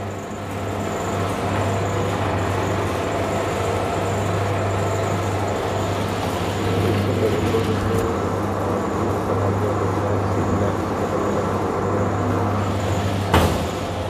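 Electric soap plodder (screw extruder) running steadily, its motor and drive humming while it pushes soap out through the mesh as noodles. A single short knock sounds near the end.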